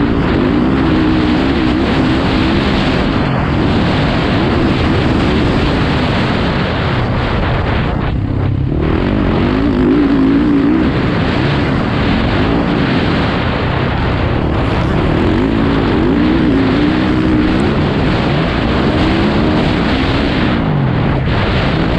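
Motocross dirt bike engine under hard riding, revving up and falling back again and again as the rider works the throttle and gears through the track. The engine note drops away briefly about eight seconds in, then picks up again.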